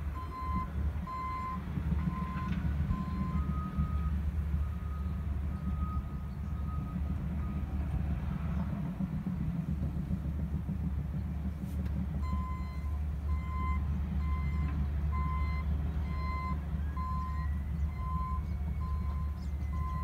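Diesel engines of a Cat D6 bulldozer, an articulated dump truck and an excavator rumbling steadily at a distance, with backup alarms beeping a little more than once a second. One alarm stops after about three seconds and a slightly higher one beeps for a few seconds. The first beeping starts again about twelve seconds in and keeps going.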